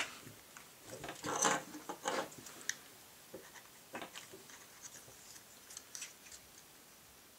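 Small clicks and scraping of a Glock 22 Gen 4's polymer grip and beavertail backstrap being handled while the backstrap retaining pin is pushed in, the pin going in stiffly. The scraping is loudest about a second to two in, then fades to light ticks.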